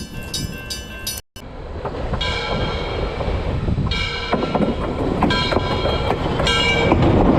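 Train running with a steady rumble that grows louder, its horn sounding four short blasts. The train sound begins after a brief silent cut about a second in.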